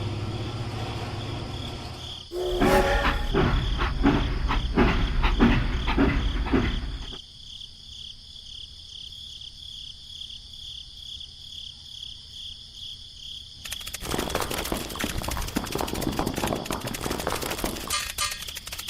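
Crickets chirping steadily throughout. Over them come work noises: a loud stretch of clattering knocks with a low rumble from about two to seven seconds in, then dense scraping and rattling from about fourteen seconds in.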